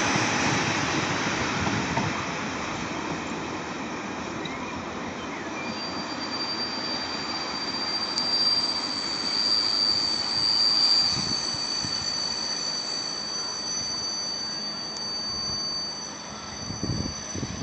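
Container wagons of a long freight train rolling past and away, the rumble of the wheels fading. A thin, steady high whine of wheel squeal joins a few seconds in.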